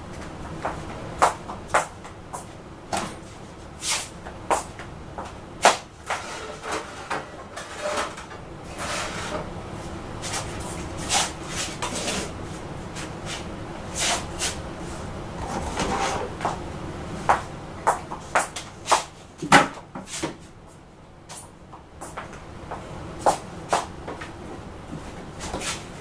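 Irregular knocks, clicks and clatters of household objects being handled and moved about, some like cupboard doors or drawers opening and closing, with a quieter stretch a little after twenty seconds in.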